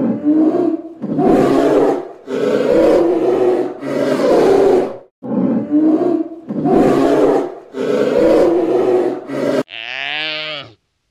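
Polar bear giving a series of about seven loud, rough growls, each lasting about a second with short gaps between. Near the end comes one shorter, clearly pitched call with a wavering tone.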